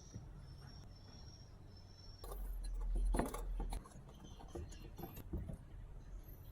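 Small hard parts being handled on a workbench: scattered clicks and knocks. About two seconds in comes a louder stretch of rubbing and clattering lasting over a second, followed by a few more light clicks.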